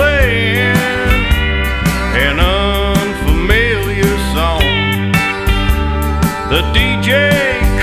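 Country song as background music, an instrumental passage with gliding slide-guitar lines over a steady bass and drum beat.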